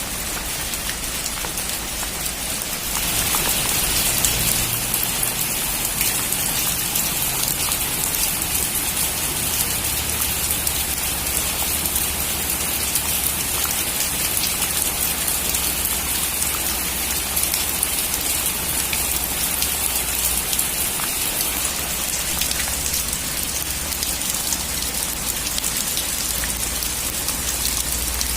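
Heavy rain falling on a metal roof: a dense, steady hiss of drops with scattered sharper individual drop ticks and a low steady rumble underneath. It grows louder about three seconds in and stays that way.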